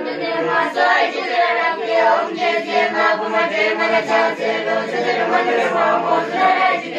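A group of children singing together, unaccompanied, several voices held and gliding in unison without a break.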